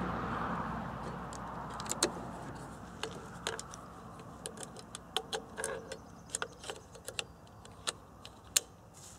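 Small sharp metallic clicks and clinks, a dozen or so spread irregularly over several seconds, from .17 HMR cartridges being handled and loaded into the CZ rifle's magazine at the action. A rushing noise fades away over the first few seconds.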